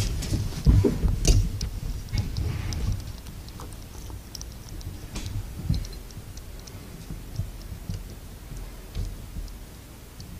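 Soft handling thumps and scattered light clicks and rattles around a wire ferret cage, heaviest in the first few seconds, then only occasional small ticks.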